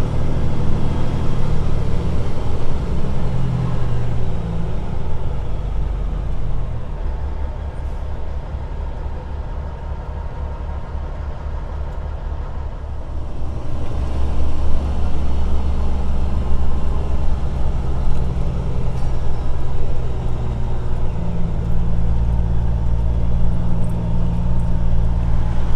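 Heavy diesel truck engine running, its low pitch shifting over the first several seconds. It turns quieter for a few seconds in the middle, then runs louder and steadier from about halfway on.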